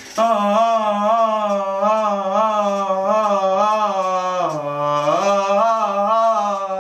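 A person humming a long, unbroken wavering note whose pitch dips lower briefly about four and a half seconds in.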